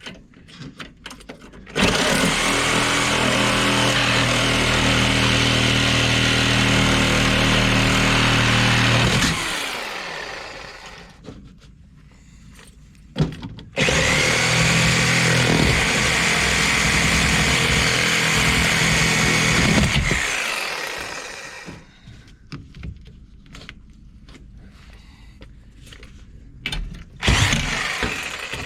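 An electric power tool runs at a steady speed for about seven seconds, then again for about six seconds, spinning down slowly each time it is released. Quieter handling knocks fill the gaps.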